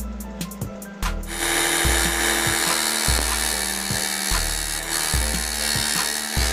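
A bench belt sander sanding the edge of a small flat piece of wood, starting a little over a second in and running steadily, over background music with a steady beat.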